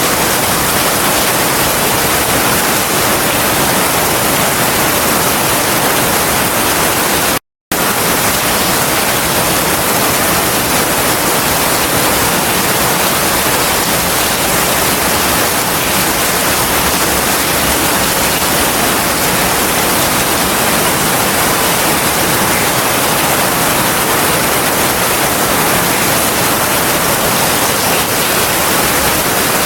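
Heavy rain falling steadily, a dense even hiss with no thunder. The sound cuts out completely for a split second about seven and a half seconds in.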